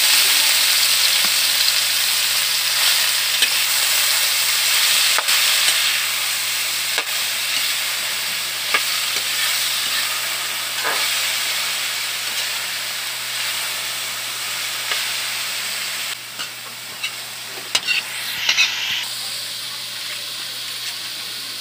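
Sliced bitter gourd sizzling in hot oil in a metal wok while a metal spatula stirs it, clicking and scraping against the pan. The sizzle is loudest at first and slowly dies down, with a quick run of spatula clicks near the end.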